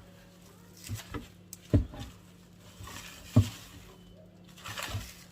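Several dull thumps with rustling of packaging as baking pans are unpacked and handled.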